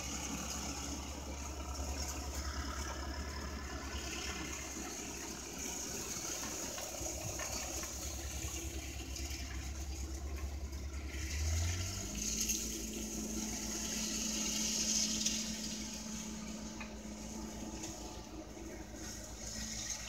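An engine running steadily with a low hum, its pitch stepping up about halfway through as it speeds up, under a steady high hiss.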